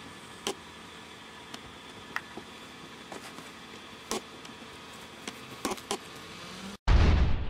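Faint steady outdoor background with a few soft scattered knocks, then near the end a sudden loud burst of noise with a deep rumble that cuts off abruptly.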